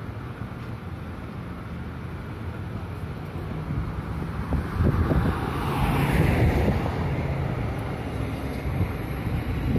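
Road traffic passing on a busy street, a steady hum of engines and tyres, with one vehicle growing louder and going by close around the middle.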